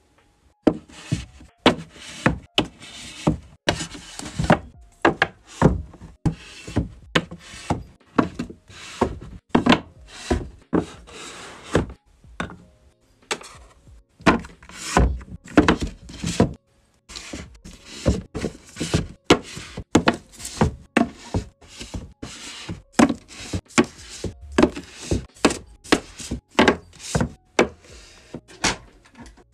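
Manga volumes being set down, stood upright and pushed into place on a shelf: a quick run of knocks and taps, about two a second, with a couple of short pauses.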